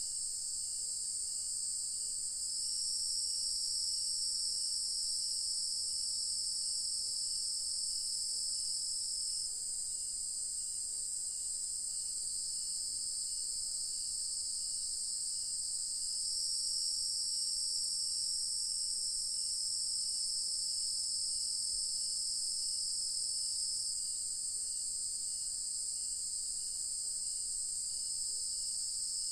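Evening chorus of crickets and other night insects: a steady high-pitched trilling that swells twice for several seconds as another part of the chorus joins in. Beneath it runs a faint, evenly repeated chirp.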